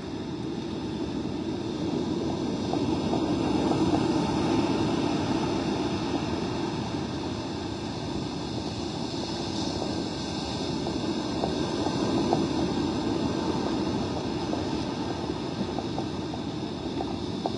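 Rough surf and gusty wind heard as a steady, muffled rumble through a plastic underwater camera housing, swelling a little twice.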